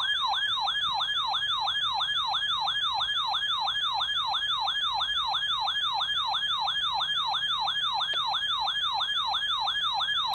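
Electronic alert siren of a NOAA Weather Radio receiver, a loud warbling yelp that sweeps down and back up about three times a second. It marks the radio being set off by an alert on the broadcast, here the weekly test.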